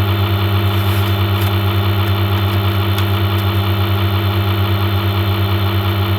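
Loud steady electrical hum, typical of mains hum on the recording, pulsing slightly about six times a second, with a few faint clicks in the first few seconds.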